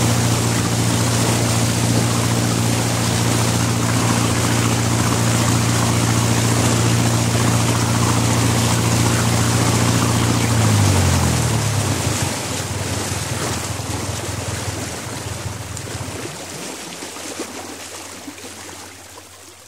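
A 27 ft cabin cruiser's 50 HP diesel engine running steadily at cruising speed, heard on board over the rush of the stern wash. A little over halfway through, the engine note drops and dies away. The water wash carries on and gradually fades as the boat comes to a stop.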